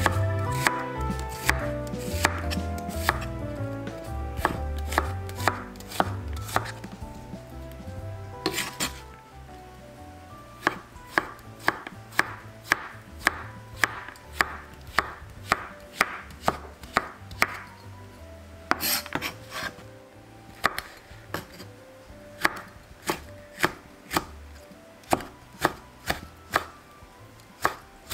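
A chef's knife chopping vegetables on a wooden cutting board: onion, then zucchini, then a red chili sliced into rings. The knife strikes the board in steady runs of about two chops a second. Soft background music fades out during the first several seconds.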